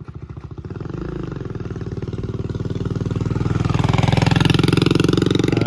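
A motor vehicle engine running and drawing near, growing steadily louder to its closest point about four seconds in.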